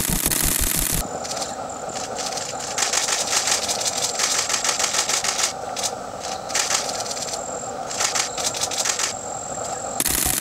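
Bursts of rapid clicking, each lasting one to three seconds with short gaps between them, over a steady background hum.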